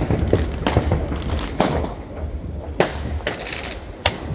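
Fireworks going off: sharp bangs about once a second, with a short burst of crackling about three and a half seconds in, over a low steady rumble.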